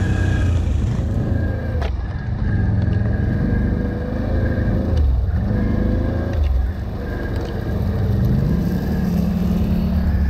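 ATV engines running, a steady close engine with a light whine over it; about eight seconds in an engine revs up and holds the higher pitch.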